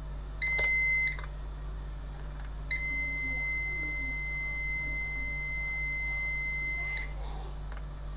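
Multimeter continuity beeper: a short beep about half a second in, then a steady high beep held for about four seconds while the probes sit across the other bank of the amplifier's output section. The reading is near zero ohms, which the technician takes for a short.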